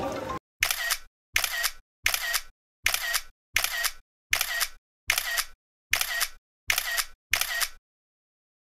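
Camera shutter click sound effect, repeated about ten times at an even pace of a little under one and a half per second, each click followed by dead silence.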